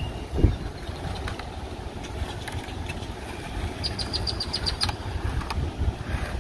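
Skateboard wheels rolling on concrete: a steady low rumble, with a single thump about half a second in and a quick run of about eight high clicks about four seconds in.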